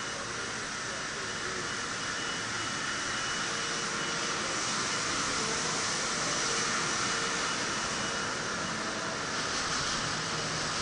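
Steady machinery noise of a copper tube factory hall: a constant, even rushing hiss with faint steady tones in it.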